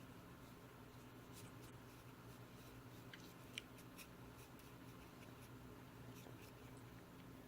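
Near silence over a steady low hum, with faint scattered clicks and light scratching from small objects being handled, and one sharper tick about three and a half seconds in.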